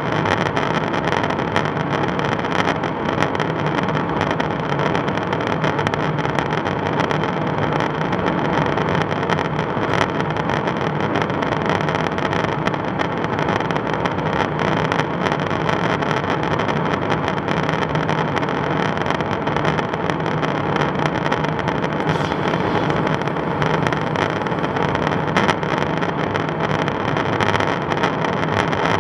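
Steady, loud drone of airflow and jet engines inside a KC-135 Stratotanker's boom operator station, a noise bed with a low hum and a few steady higher tones.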